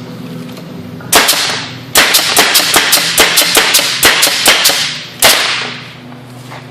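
Nail gun firing: one shot about a second in, then a rapid string of about a dozen shots at roughly four a second, then one last shot.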